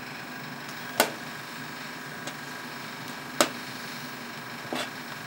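A metal spoon stirring mushrooms in an enamel pot of boiling brine, knocking against the pot with sharp clinks about a second in, about three and a half seconds in and near the end, over a steady low hiss.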